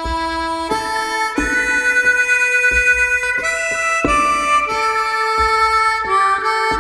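Background music: long held melody notes changing every second or so, over a slow, steady beat.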